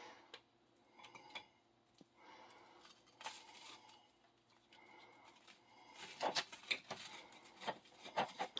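Table knife buttering toast: soft scraping strokes, then a busier run of sharper clicks and taps in the last few seconds.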